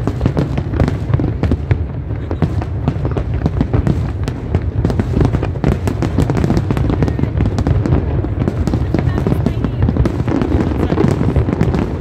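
Aerial fireworks display bursting nonstop: rapid, overlapping bangs and crackles over a constant low rumble.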